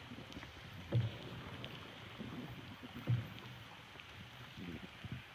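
Small boat being paddled through water: a low knock or splash from a paddle stroke about every two seconds, over faint water sounds.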